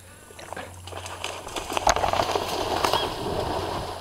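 A large alligator, about ten feet long, plunging into the water, a splashing rush with crackles that builds about a second in, is loudest around two seconds and then dies down.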